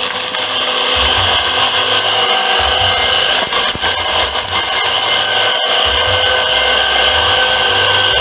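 A motor-driven power tool or machine running steadily with a loud whine, broken by a very brief dropout a little past halfway.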